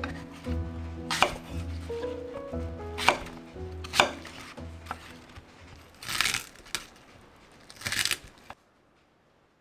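A knife cutting apples on a wooden cutting board: a string of sharp knocks spaced about a second apart. Soft background music with a pulsing bass plays under the first half and fades out, and all sound cuts off abruptly near the end.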